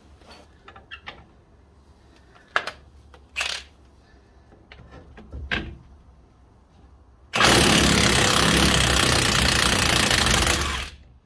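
Impact gun hammering for about three and a half seconds on a rust-seized nut that has been heated to free it. It starts about seven seconds in and stops suddenly, after a few light knocks and clinks of tools.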